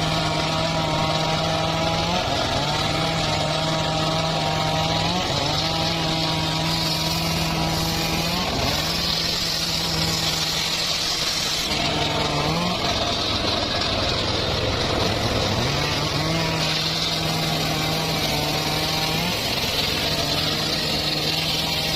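A homemade circular saw running steadily and cutting mahogany. Its pitch dips briefly about every three seconds as the blade bogs into each cut, then recovers, with a hissing cutting noise at times.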